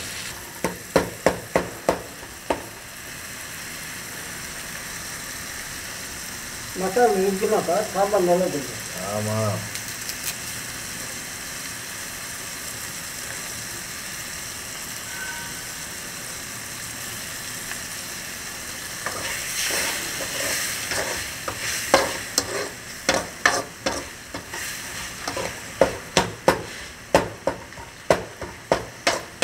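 Onions and tomatoes frying with a steady sizzle in a metal kadai, with a steel ladle clicking and scraping against the pan as it stirs. The stirring strokes come quickly at the start and again from about two-thirds of the way through.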